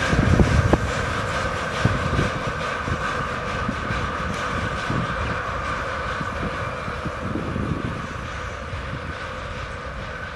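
Freight train of rail tank cars rolling away, wheels knocking over the rail joints above a steady rumble and a higher steady hum, fading as the train recedes.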